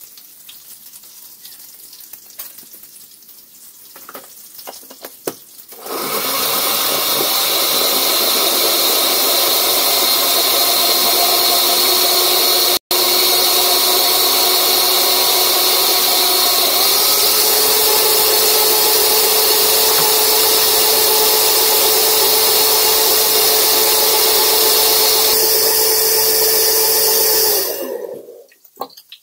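Countertop blender running at full speed, blending a green sauce: a steady motor whine that starts about six seconds in, steps up slightly in pitch partway through, and cuts off near the end.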